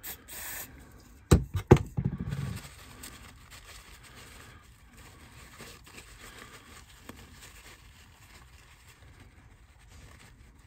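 Two sharp knocks about a second and a half in, then faint rubbing and rustling of a tissue as the small carbon brushes of an old model locomotive motor are wiped clean.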